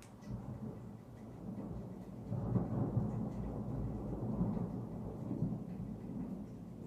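A long low rumble of thunder over rain. It builds just after the start, is loudest about two and a half seconds in, then slowly dies away.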